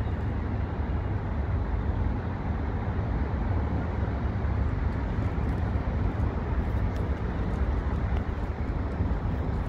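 Class 43 HST diesel power car drawing slowly into a platform: a steady low rumble of the engine and wheels on the rails.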